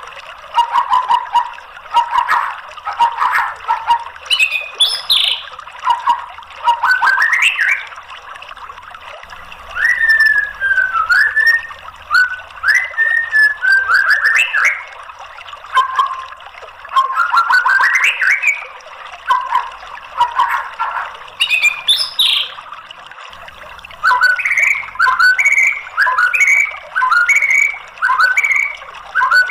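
White-rumped shama (murai batu) singing: loud, varied whistled phrases that rise and fall, separated by short pauses, over a steady hiss. Near the end the song turns into a quick run of repeated short two-note phrases.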